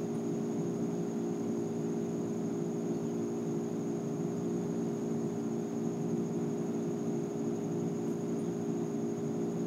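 Steady mechanical hum made of several low tones that hold level without change, with a thin, steady high-pitched whine above it.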